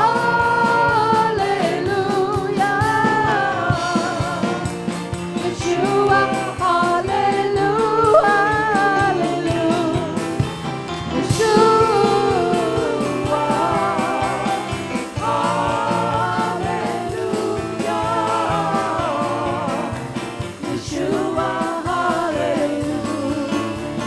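Live worship music: a singing voice carries a melody over a band with a steady beat.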